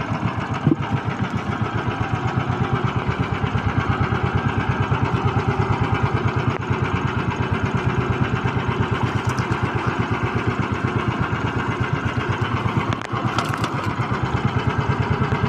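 Small engine running steadily with a rapid, even pulse. Its loudness dips briefly once, near the end.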